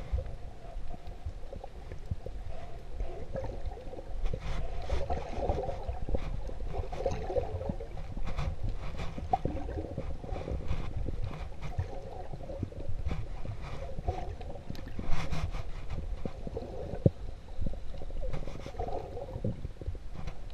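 Underwater sound of sea water heard through a GoPro's waterproof housing: a steady low rumble and gurgling, with many scattered sharp clicks throughout.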